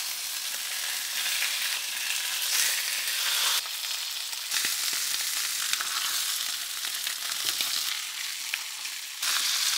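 Lamb neck pieces sizzling as they sear in hot oil in a black steel pan, browning before being braised. A steady frying hiss that steps up and down in loudness a few times.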